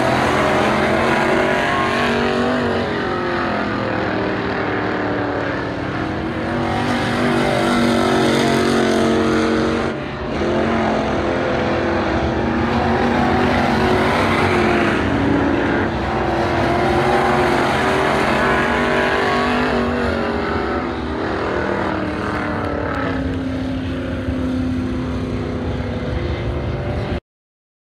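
Dirt-track Midwest Modified race cars running laps with their V8 engines, the sound swelling and easing as cars come past. The sound cuts off suddenly near the end.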